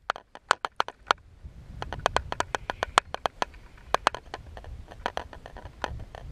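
Wind on the microphone: a low rumble that builds after about a second and a half, with rapid, irregular crackling clicks throughout.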